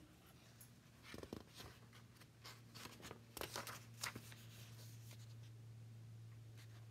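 Faint rustling and crinkling of a picture book's paper page being turned, in several short crackles between about one and four seconds in, over a steady low hum.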